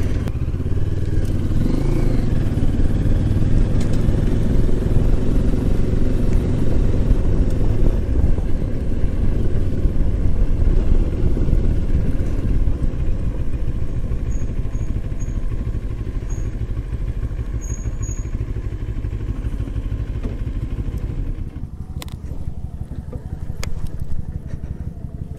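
Moto Morini X-Cape 650 parallel-twin motorcycle running at low riding speed, its engine and road noise a steady rumble, easing off in the last few seconds. Two sharp clicks near the end.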